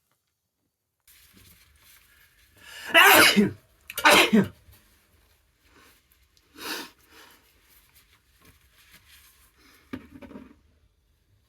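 A person sneezing twice in quick succession about three seconds in, brought on by a dust allergy, then a softer third burst a couple of seconds later.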